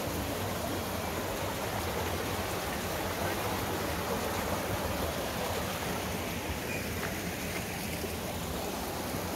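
Steady rushing of running water from a stream.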